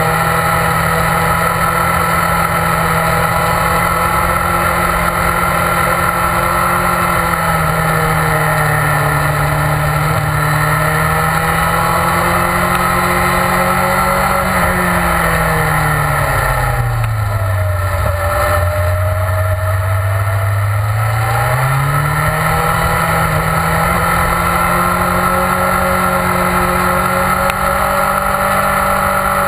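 BMW S1000RR's inline-four engine running hard at high revs on track, with wind noise. About halfway through the engine note falls away as the bike slows for a corner, holds low for a few seconds, then climbs back up as it accelerates out.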